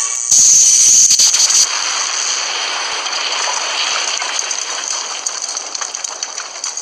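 Cartoon blast sound effect: a loud burst of noise lasting about a second, then crackling noise that slowly fades away.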